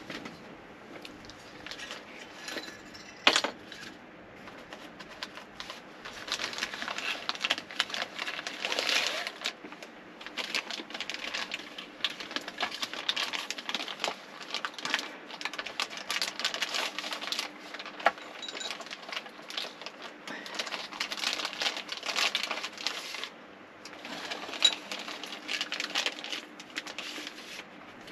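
Plastic wrapping rustling and crinkling, with scattered clicks and knocks, as plastic-wrapped metal tube sections of a small wind turbine are handled and lifted out of a padded carry case. A sharp knock comes about three seconds in, over a faint steady hum.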